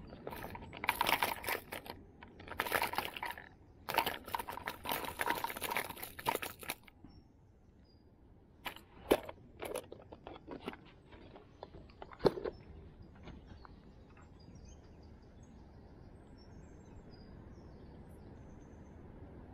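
Rustling and clattering as a plastic tackle box of hard fishing lures is handled, then two sharp clicks a few seconds apart. After that, a faint steady hush with a few small bird chirps.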